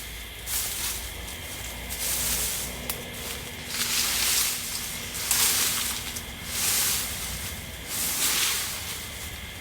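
Repeated swishing scrapes of a garden tool sweeping cut leaves and twigs together into a pile, about one stroke a second.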